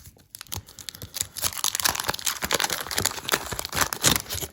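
Wax-paper baseball card pack being torn open and its wrapper crinkled by hand: a dense run of crackling that stops near the end.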